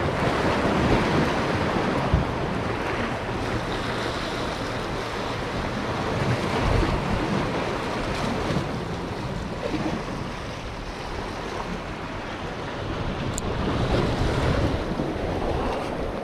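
Sea waves washing, with wind buffeting the microphone; the noise swells and eases every several seconds.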